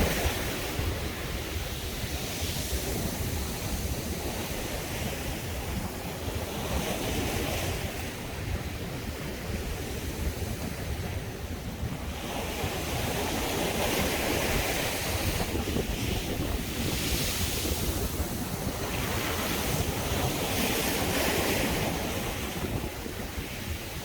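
Sea waves surging and washing onto a beach, a new surge every few seconds, with wind buffeting the microphone as a low rumble.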